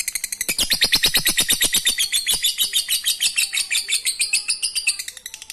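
Lovebird (Agapornis) giving its long ngekek: a rapid, unbroken chattering trill of sharp, high notes at about ten a second. It gets quieter about five seconds in.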